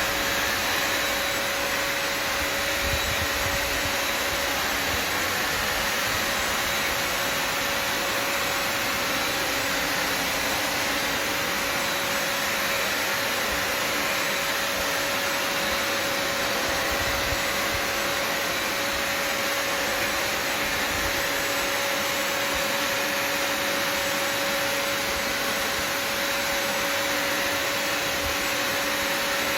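Bissell Symphony Pet vacuum and steam mop's vacuum motor running steadily: a constant airy rush with a steady whine over it.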